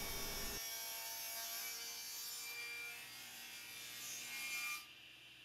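Table saw with a crosscut blade ripping a maple board along its end grain: a faint, steady hiss of the blade in the wood. The deeper part of the sound drops away about half a second in, and it fades out near the end.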